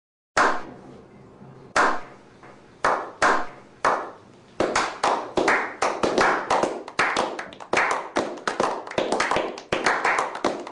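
Slow clap by a small group: single sharp hand claps about a second apart, quickening after about four and a half seconds into fast, steady clapping.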